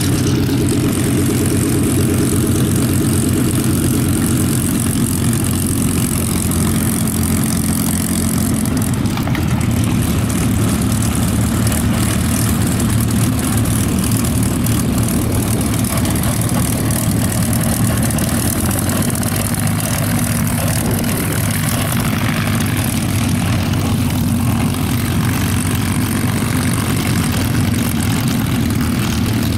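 WWII piston-engined fighters taxiing at low power: a P-47 Thunderbolt's Pratt & Whitney R-2800 radial, then P-51 Mustangs' Merlin V-12s. Their propellers make a steady, low drone, and the sound changes about nine seconds in.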